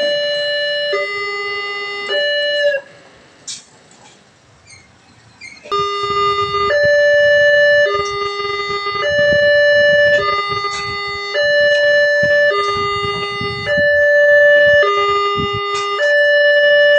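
Railway level-crossing alarm sounding its electronic two-tone signal, a higher and a lower note alternating about once a second, warning that the crossing gates are closing for an approaching train. It cuts out for about three seconds near the start, then resumes with a low rumble underneath.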